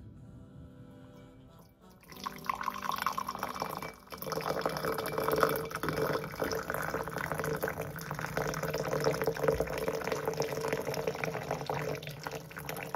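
Water pouring steadily, starting about two seconds in, with a brief break about two seconds later, as water is run for a cup of chamomile tea. Soft background music plays under it.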